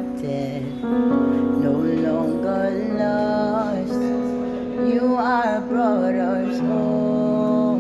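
Soft background worship music: sustained instrumental chords with a singer's voice over them.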